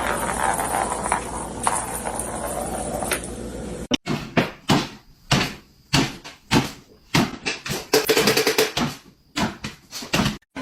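A steady noisy background with a few clicks, then, about four seconds in, a run of about a dozen sharp, irregular knocks and bangs, like a cupboard door being rattled or banged.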